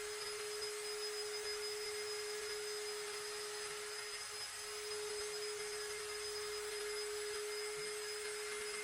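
Small electric power tool motor running steadily at one constant pitch, with a hiss.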